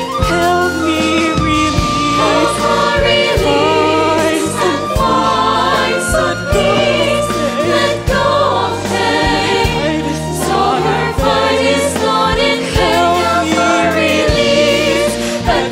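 Several voices singing a number from a stage musical, holding notes with vibrato, over instrumental accompaniment with a sustained bass line and regular drum hits.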